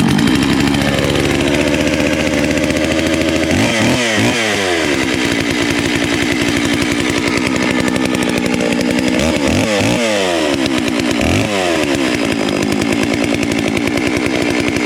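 Holzforma G660 92cc two-stroke chainsaw running from a cold start after six months in storage. It holds a steady idle, with the revs swinging up and back down about 4 seconds in and again twice around 10 and 11 seconds.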